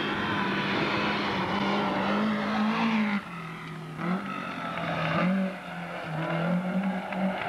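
Race car engine running at high revs on a hillclimb. Its pitch climbs slightly, then drops and the sound gets quieter about three seconds in. It climbs again and drops once more a little past five seconds.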